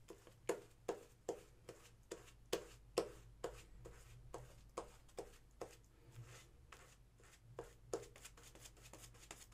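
Parker semi-slant safety razor scraping through lathered scalp stubble in short strokes, about two a second, each a crisp rasp of hair being cut, with a brief pause a little after the middle.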